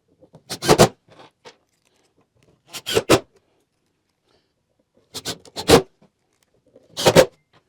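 Four short scraping rasps, roughly two seconds apart, each with a quick double stroke.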